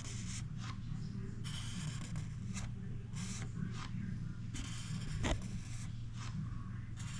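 Irregular scraping and rubbing strokes of hand-tool work, over a steady low hum, with one sharp click a little over five seconds in.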